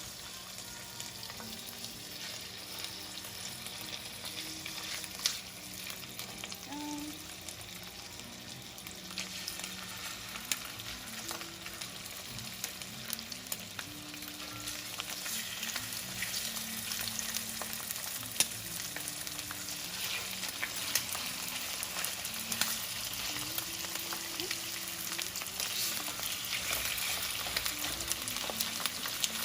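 Chicken thighs searing skin side down in hot oil in a pan: a steady sizzle with crackling pops that grows a little louder over time.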